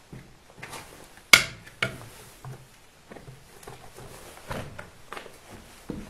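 Footsteps over a rubble-strewn floor: irregular knocks and scuffs, the sharpest and loudest a little over a second in.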